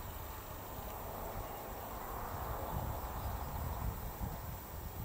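Quiet outdoor background: an uneven low rumble with a faint hiss that swells slightly in the middle.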